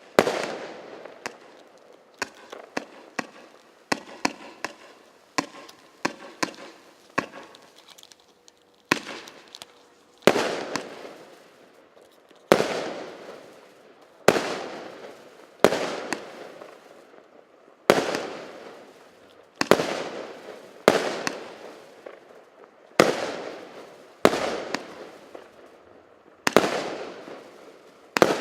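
A 0.8-inch, 169-shot firework battery (cake) firing: first a quick run of several bangs a second, then from about nine seconds in single loud shots every second and a half or so, each bang trailing off in crackle and echo.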